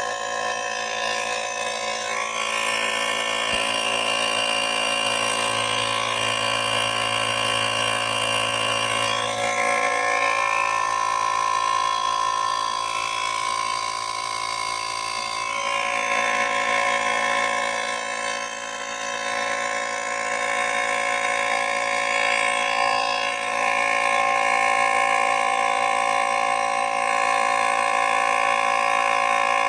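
Portable cordless tire inflator running steadily, its small piston pump buzzing as it pumps air into a low tire, with slight shifts in pitch and strength along the way.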